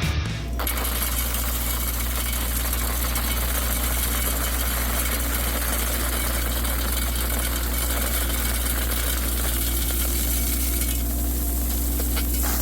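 Heavy equipment's diesel engine, most likely the excavator's, running steadily at an even, low idle with no revving.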